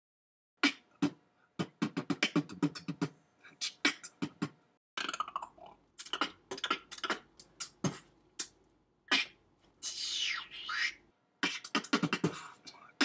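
Beatboxing into a handheld microphone: quick runs of sharp percussive mouth hits and clicks, broken by short silences, with a few gliding whistle-like mouth noises about three-quarters of the way in.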